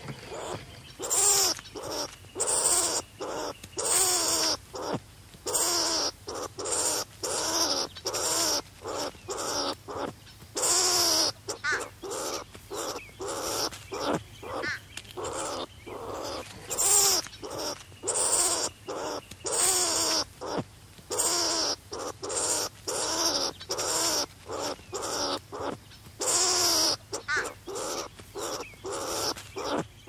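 Striped skunk calling over and over, about two short harsh calls a second, each with a wavering pitch and a hissy edge.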